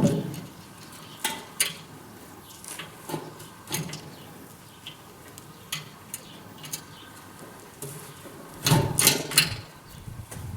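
Scattered metal clinks and knocks of parts and tools being handled while a grain-heap fan is assembled, with a louder run of several knocks about nine seconds in.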